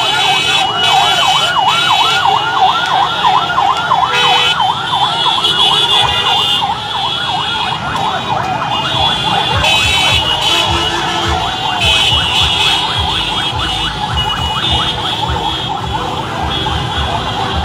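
A siren yelping in fast rising-and-falling sweeps, about three to four a second, over the noise of a street crowd; the siren dies away about two-thirds of the way through.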